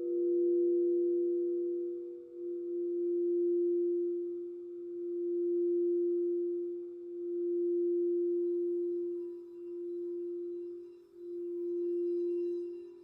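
Crystal singing bowl ringing on one steady low note that swells and fades every two to three seconds, with a fainter higher bowl note sounding alongside.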